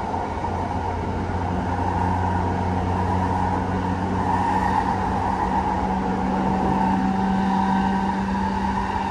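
E233-7000 series electric train running at steady speed, heard from inside the car: a steady hum from the traction motors and inverter over the rumble of wheels on rail. A lower steady hum comes in about a second and a half in.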